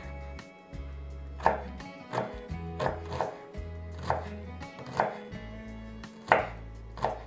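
Chef's knife dicing an onion on a wooden cutting board: a dozen or so sharp knocks of the blade on the board at an uneven pace of about two a second.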